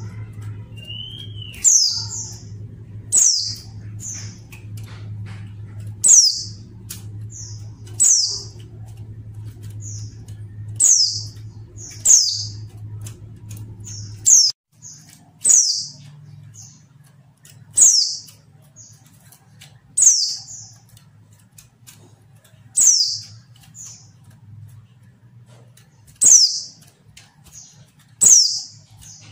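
Female white-eye (pleci) calling again and again: a short, high note sliding downward, each followed by one or two softer, shorter notes, every two to three seconds or so. A low steady hum runs underneath for about the first half.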